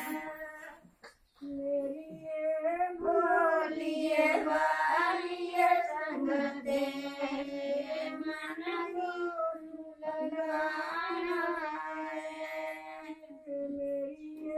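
Women singing a wedding song in long, drawn-out notes, with a brief pause about a second in.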